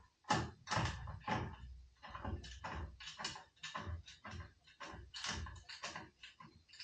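A quick, irregular run of small clicks and knocks, about three or four a second, as bolt, washer and mounting hardware are worked on the tool holder and metal tool box.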